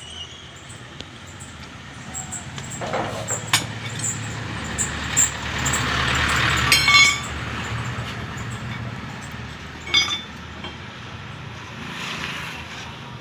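A vehicle engine runs nearby, swelling up and easing off over several seconds. A few sharp metallic clinks ring out near the middle, with single knocks before and after.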